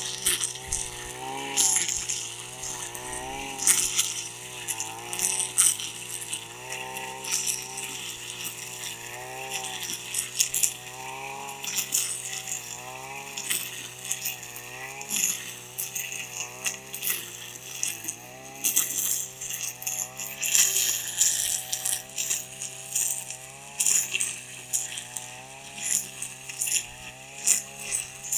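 Petrol brush cutter with trimmer line cutting grass. Its engine note rises and falls every second or two with each sweep, along with frequent sharp clicks and rattles.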